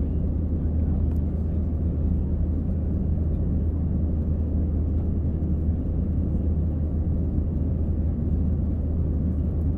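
Aircraft engines running with a steady low rumble that holds the same level and pitch throughout, with no rise or fall.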